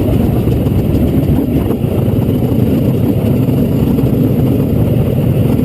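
Trail bike engine running steadily while under way, with its sound heaviest in the low range.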